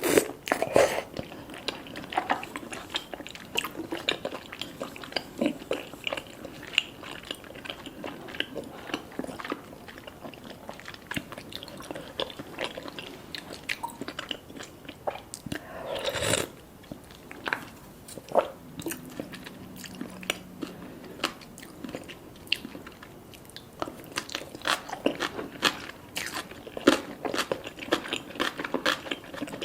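Close-miked eating: biting and chewing mouthfuls of spicy fish cake and ham gimbap, a steady run of irregular wet clicks and crunches, with a louder bite about sixteen seconds in.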